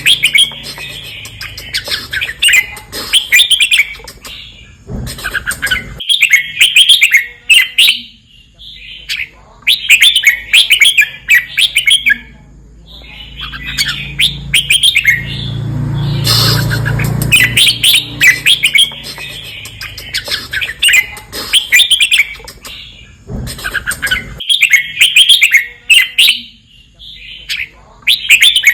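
Red-whiskered bulbul singing its repeated, doubled song phrases in short bursts every few seconds, with brief silent gaps between them. A low rumble sits under the song at times.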